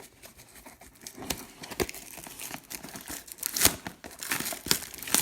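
Football trading card pack wrappers being torn open and crinkled, with sharp crackles and clicks that grow busier about halfway through.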